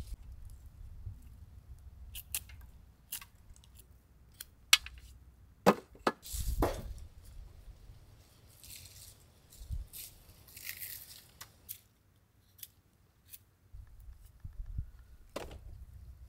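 A string of scattered sharp cracks and knocks with a few short rustles, typical of palmyra sprouts being chopped and peeled by hand. The loudest knocks come a little under five seconds in and again near six seconds.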